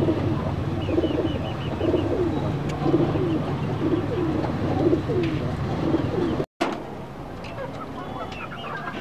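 Domestic pigeons cooing, a steady run of low coos at about two a second that breaks off about two-thirds of the way through; after that it is quieter, with a few faint higher chirps near the end.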